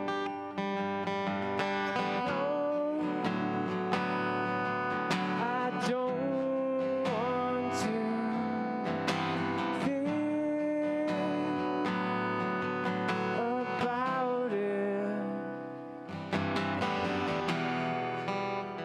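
Live acoustic guitar strummed steadily, with a man singing into a microphone over it at times.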